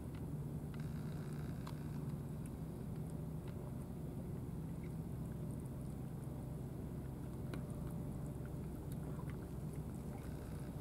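Steady low engine hum, with faint scattered ticks of a cat chewing wet food.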